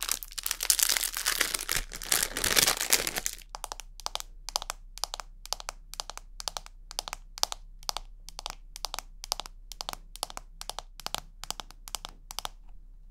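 A thin plastic bag crinkles for the first few seconds. Then fingernails tap on a small clear hard-plastic case, a steady run of sharp clicks at about three a second.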